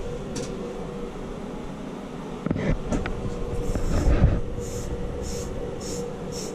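A wire fitting brush scrubbing copper pipe or a fitting clean for soldering: a few handling knocks and a heavy thump, then rhythmic scratchy strokes just under two a second from about halfway in. A steady low hum runs underneath.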